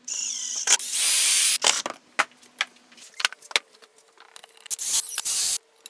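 Milwaukee cordless drill running in three short bursts on a plywood box, its motor whining high over the noise of the bit or screw biting. Sharp clicks and knocks from handling fall between the bursts.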